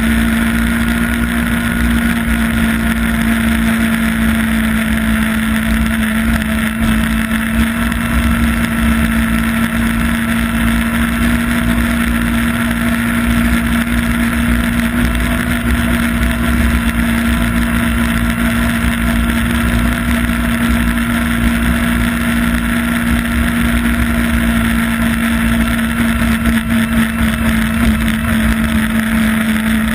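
Yamaha Apex snowmobile's four-stroke four-cylinder engine running at a steady cruising speed, with a constant engine tone over the rush of wind.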